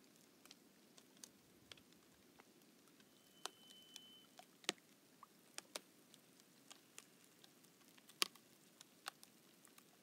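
Faint, irregular crackling of thawing lake ice: scattered sharp clicks and ticks, the loudest two about halfway through and about eight seconds in, as a slight breeze makes the ice rise and fall.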